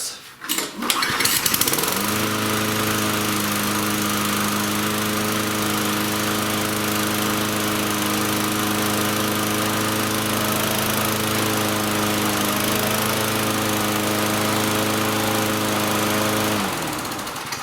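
Toro mower's 6.5 hp Tecumseh single-cylinder engine coming up to a steady run within the first couple of seconds, holding an even speed, then sagging and dying out near the end, a sign of the carburetor fault that still keeps it from running on its own.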